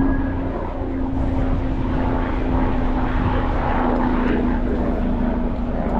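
A steady engine drone holding one even pitch over a low rumble.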